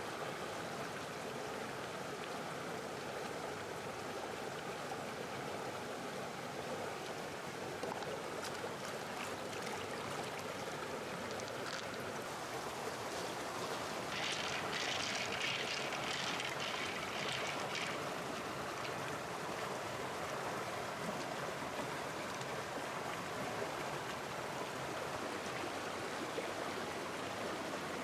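Shallow stream flowing steadily over rocks. About halfway through, a few seconds of light clicking as pearls are stirred in an open clam shell.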